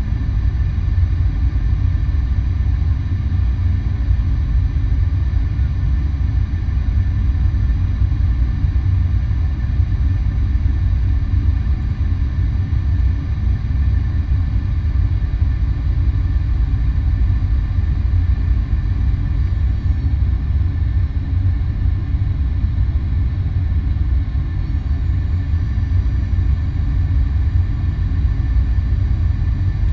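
Cabin noise of a Boeing 737-800 descending on approach, heard from a window seat beside the wing: a steady low rumble of its CFM56 engines and rushing air. A faint high whine drops in pitch about twenty seconds in and comes back up about five seconds later.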